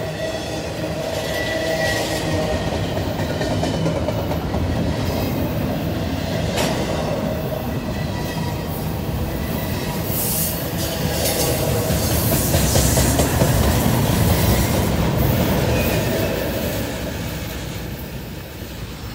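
Double-stack intermodal container train rolling past: steel wheels rumbling and clacking over the rails, with a faint wheel squeal. It is loudest about two-thirds of the way through, then fades as the last cars go by.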